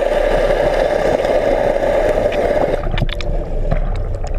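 Water rushing over a camera held underwater, a loud, muffled, steady wash. About three seconds in it gives way to quieter sloshing with sharp clicks and pops.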